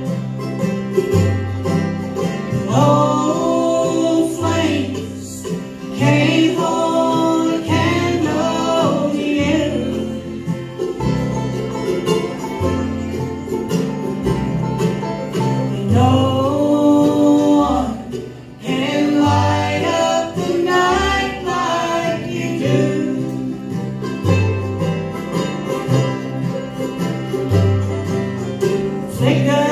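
Bluegrass band playing live: banjo, fiddle, mandolin, acoustic guitar and upright bass, the bass stepping from note to note under a lead melody that slides between notes.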